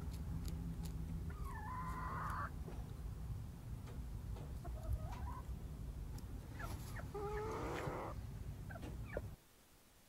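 Silkie chickens clucking softly while foraging: three short calls, about a second and a half in, around three and a half seconds in, and a stronger one past halfway, over a steady low background noise.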